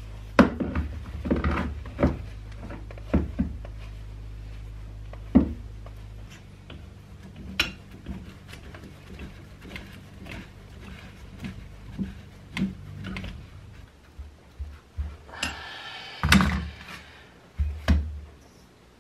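Metal wrenches and shock absorber parts knocking and clunking on a wooden workbench while a pit bike rear shock is screwed back together with a pipe wrench and an adjustable wrench. A short scraping rasp comes about sixteen seconds in, and a steady low hum runs under the first six seconds.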